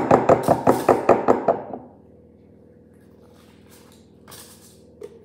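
Silicone spatula knocked rapidly against the rim of a glass jug to shake off cake batter: a quick run of about a dozen sharp knocks, some six a second, stopping about two seconds in.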